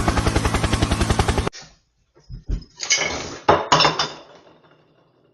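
A fast, even chopping pulse that cuts off about a second and a half in. Then a few knocks and two crashing clatters of hard objects falling, tagged as breaking dishes, fading out before the end.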